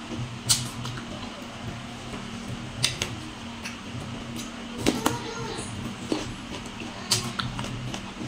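Sharp wet clicks and taps as a small green fruit is dipped and turned in a ceramic bowl of chili sauce, about five of them spread a second or two apart, over a steady low hum.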